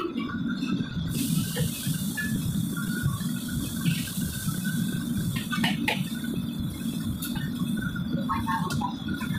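Wok range at work: water running from the range's tap into its basin over the steady rush of the burners, with metal ladles and wire strainers clinking a few times.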